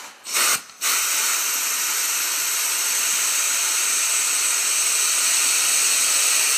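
Air being blown through the trachea into a dead deer's lungs to inflate them, hissing: a short blast about half a second in, then a steady continuous hiss.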